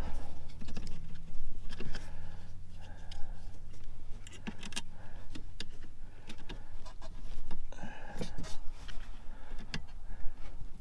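Scattered light clicks, clinks and rustling as hands push the new heater core's pipes into place and work their clamp fittings under a van's dash. A low steady hum runs through the first half and fades out.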